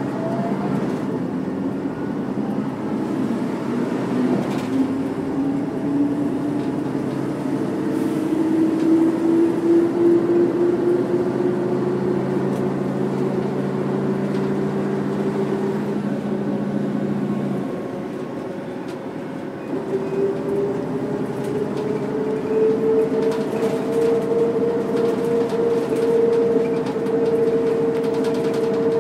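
Mercedes-Benz O405 city bus with its OM447H six-cylinder diesel and ZF 4HP500 automatic under way, a drivetrain whine rising steadily in pitch as it gathers speed. About two-thirds through, the engine note falls away and the level dips briefly. Then the whine climbs again at a higher pitch.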